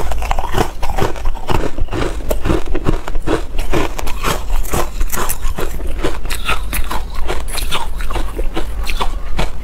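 Ice being crunched and chewed in the mouth: a dense, irregular run of sharp cracking crunches.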